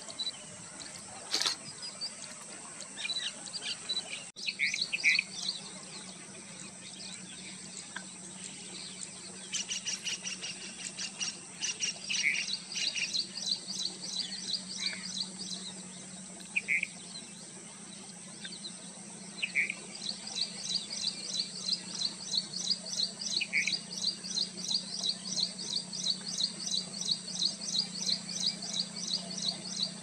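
Small birds chirping: quick runs of high chirps, about three a second, with a few lower single calls between them, over a steady high hiss.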